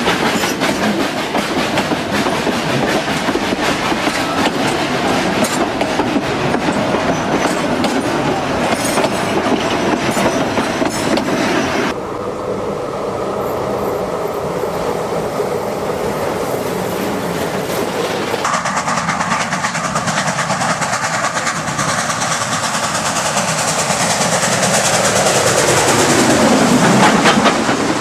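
Steam trains running past close by, heard in three separate clips joined by abrupt cuts about 12 and 18 seconds in. Near the end a sound sweeps down in pitch as a train goes by.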